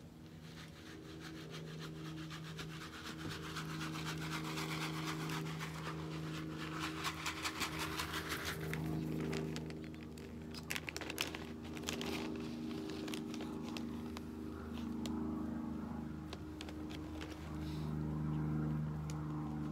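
Crinkling and rustling of a plastic bag of mealworms being rummaged by hand, loudest in the first half, with a few sharper clicks about halfway through.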